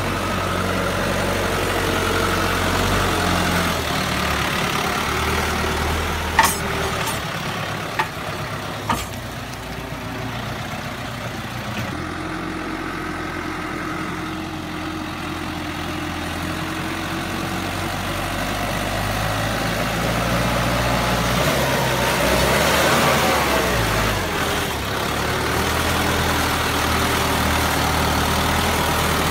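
Tümosan 8085 tractor's turbocharged diesel engine running steadily as it drives through mud. Three short sharp knocks come about a third of the way in. Later the revs rise and fall once, louder for a couple of seconds.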